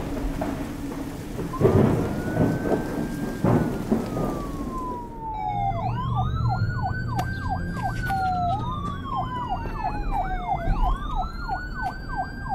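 Thunder cracking and rumbling over steady rain, with a police-style siren wailing, slowly rising and falling, from about a second and a half in. A second siren joins about five seconds in, alternating slow wails with a rapid yelp.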